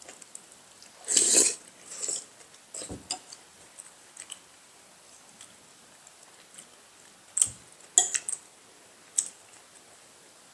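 Spoons clinking and scraping against soup bowls and plates while eating, a handful of scattered short clinks, the loudest and longest about a second in and a quick cluster near the end.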